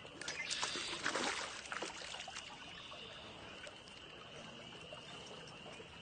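Hooked chain pickerel splashing at the surface, a flurry of splashes in the first couple of seconds, then quieter trickling and dripping water as the fish is lifted out on the line.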